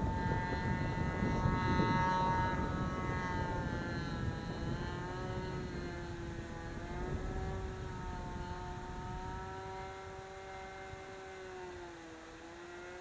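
The engine of a vintage radio-controlled model plane in flight: a steady high buzz whose pitch wavers slightly as the plane manoeuvres, growing gradually fainter as it flies farther off.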